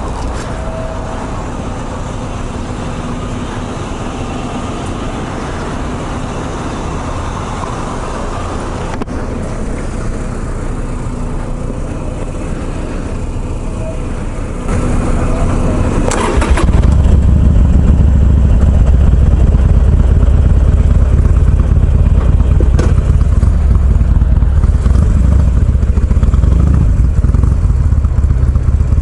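Harley-Davidson Sportster's V-twin engine running steadily; about 15 to 16 seconds in its sound jumps much louder and stays loud, with a deep steady rumble. Two sharp clicks are heard, one around the jump and one near 23 seconds.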